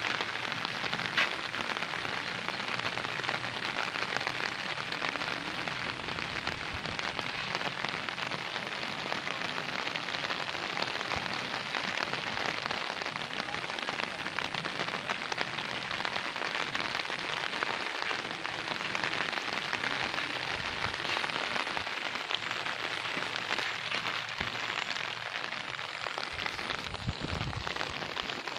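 Steady rain falling, an even, dense hiss of drops on the ground and surfaces.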